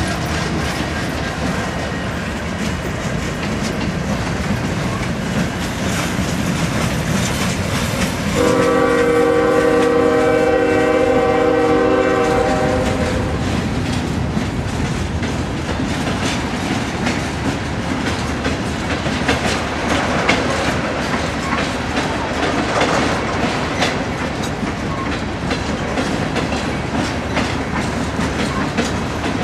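Empty freight hoppers rolling past with steady wheel clatter over the rail joints. About eight seconds in, a diesel locomotive's air horn sounds one chord, held for about four seconds.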